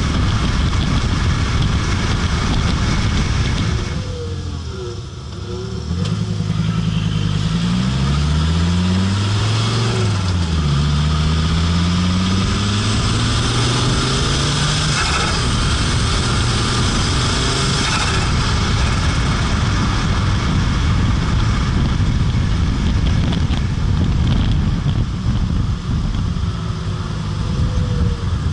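Fiat Marea Turbo's turbocharged five-cylinder engine pulling the car along, heard with steady road and wind noise. The engine note climbs in pitch twice through the middle, dropping back between the climbs as in a gear change.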